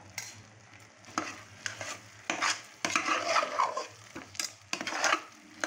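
A perforated metal ladle stirring and scraping thick palkova (milk reduced with sugar until it has set into a lump) around a pressure-cooker pan. The scraping strokes are irregular, starting about a second in and coming thicker after that.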